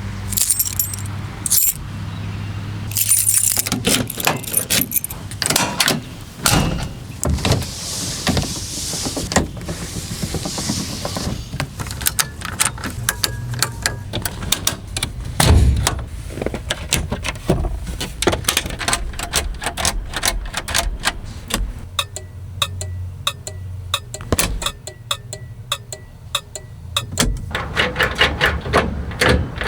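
Ford dump truck running, a low engine hum under a steady stream of clicks and rattles, with a spell of hiss about seven seconds in.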